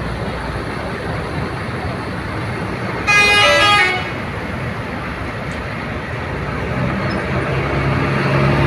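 Steady rumble of bus engines at a bus terminal, cut by a single loud horn blast lasting under a second about three seconds in. Near the end, a bus engine's low drone grows louder as a bus moves close by.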